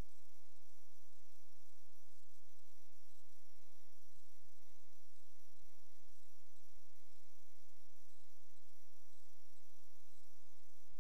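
Steady electrical hum with a buzzing stack of overtones under a constant static hiss.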